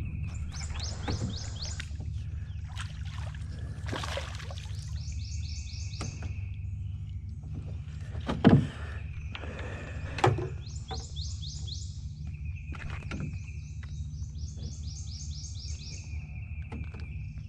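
A wild creature's call repeating every few seconds: a steady high note, then a quick run of even higher chirps. A low steady hum runs underneath, and two sharp knocks sound about eight and a half and ten seconds in.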